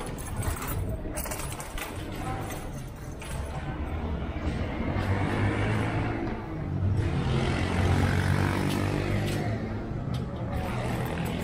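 Street traffic on a city avenue: a motor vehicle's engine running close by, growing louder in the second half and loudest about eight seconds in.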